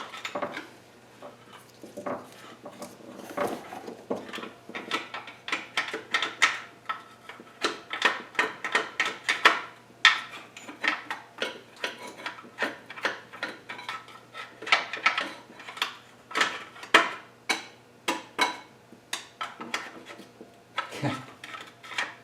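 Metal hand tools clicking and clinking in a quick, uneven run of sharp clicks, from work on the engine's crankshaft pulley.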